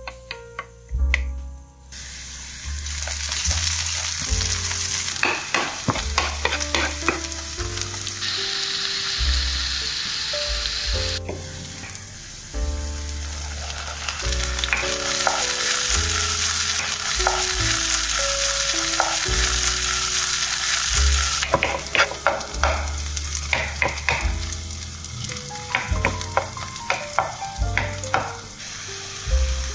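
Sliced onions sizzling in oil in a nonstick frying pan as they caramelize over low heat, with clusters of clicks and scrapes from a wooden spatula stirring them several times.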